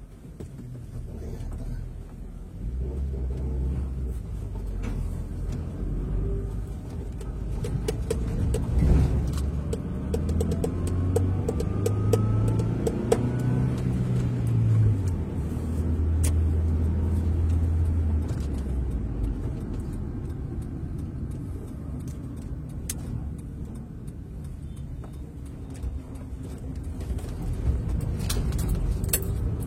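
A vehicle engine running while being driven, with road rumble. The engine note shifts pitch midway, holds steady for a few seconds, and there are a few sharp clicks near the end.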